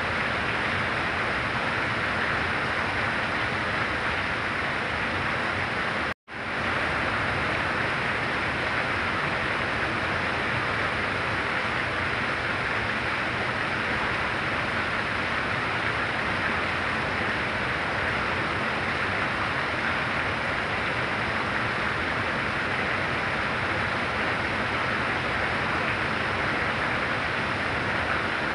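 Heavy rain falling in a steady, even hiss. It cuts out abruptly for a split second about six seconds in, then comes straight back.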